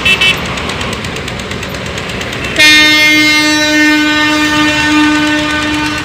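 A horn sounds one long, steady, loud note for about three and a half seconds, starting a little over halfway in, over continuous engine noise. A short high beep is heard right at the start.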